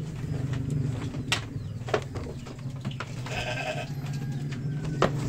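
A sheep bleats once, briefly, about three seconds in, over a steady low hum, with a few sharp clicks.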